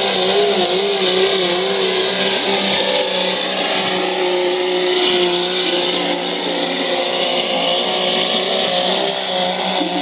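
Modified diesel pickup truck engine running flat out under heavy load while it pulls a weight-transfer sled, with thick black smoke showing it at full fuel. The engine note wavers up and down for the first couple of seconds, then holds steady.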